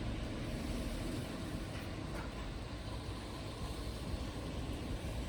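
Steady low rumbling background noise with no distinct calls or events.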